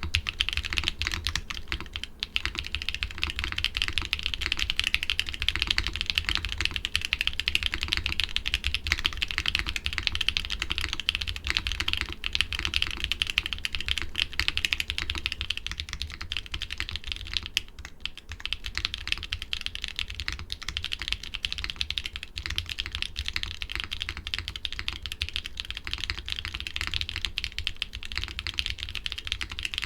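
Continuous fast typing on a mechanical keyboard fitted with doubleshot keycaps, a dense run of key clacks over a steady low hum. About sixteen seconds in, the typing moves on to a different keycap set.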